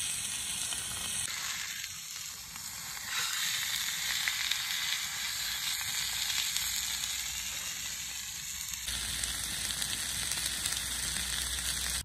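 Meat sizzling as it fries in a small ceramic-coated frying pan on a portable gas canister stove. The sound is a steady frying hiss that jumps abruptly in level a few times.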